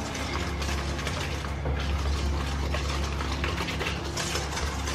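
Wire balloon whisk beating muffin batter in a stainless steel mixing bowl: rapid, steady clinking and scraping of the wires against the bowl.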